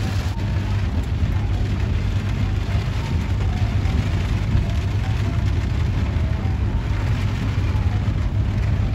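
Heavy rain drumming on a car's roof and windows, heard from inside the car, over a steady low rumble.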